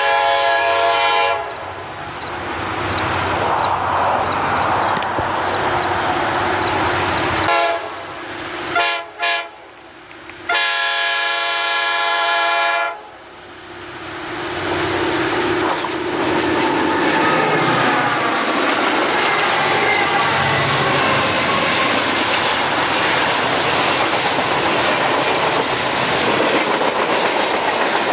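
CSX diesel freight locomotives approaching and sounding the horn in the grade-crossing pattern: long, long, short, long, the last blast ending about 13 seconds in. The locomotives then pass with engine rumble, and the freight cars roll by with wheels clacking over the rail joints.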